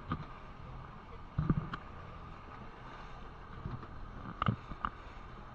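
Twin 150 hp outboard motors running steadily as the boat travels at speed over choppy water. Several short thumps come through, the loudest about a second and a half in and two more near the end.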